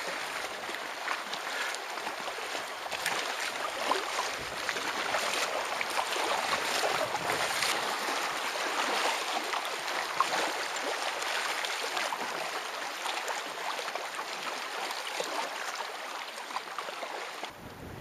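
Water splashing and lapping around a kayak as it is paddled through choppy lake water, with the splash of paddle strokes. It falls quieter just before the end.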